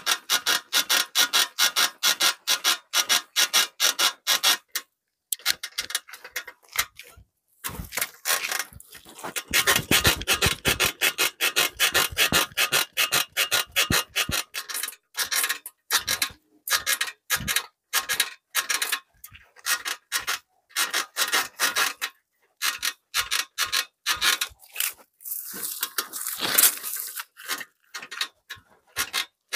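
Bicycle freewheel ratchet clicking as the wheel turns, in irregular runs of rapid, sharp ticks with brief pauses between.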